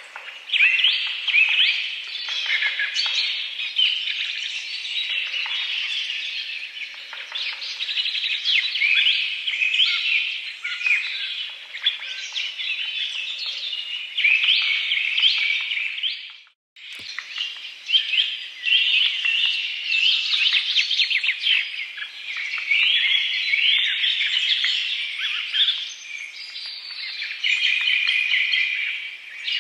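A dense chorus of small birds chirping and calling, with many overlapping short, quick notes. The sound drops out briefly a little past halfway, then resumes.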